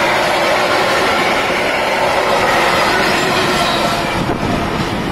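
Freight train of covered steel-coil wagons running past on the rails, a steady noise of wheels on track. It eases off near the end as the last wagon passes and draws away.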